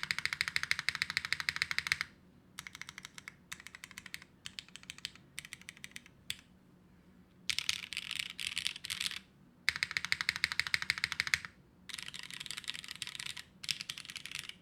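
TGR Jane v3 custom mechanical keyboard with Cherry switches on a carbon-fibre half plate, typed on quickly in runs of rapid keystroke clicks. Short pauses separate the runs, and some runs are softer than others.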